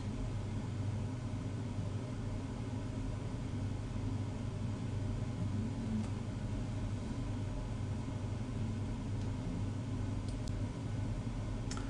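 Steady low electrical hum with faint hiss: the background noise of the recording, with no distinct event in it.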